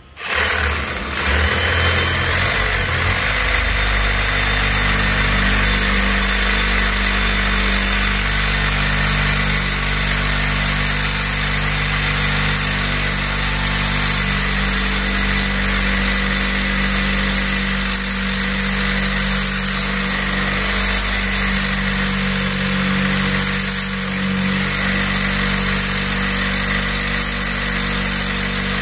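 DeWalt portable band saw running steadily as its blade cuts through a rusted black iron pipe fitting: a constant motor whine with a rasping haze of the blade on the metal. The saw comes up to speed in the first second.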